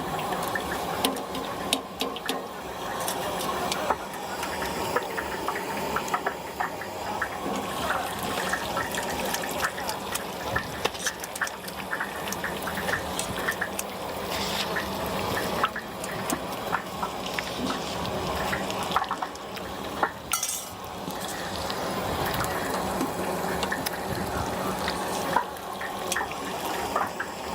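Stinky tofu deep-frying in hot oil: steady bubbling and crackling, with occasional sharp clicks.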